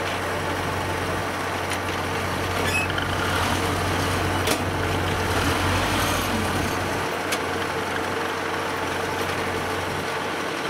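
Heavy farm machinery engine running steadily, its low hum dropping away about six seconds in, with a few faint clicks.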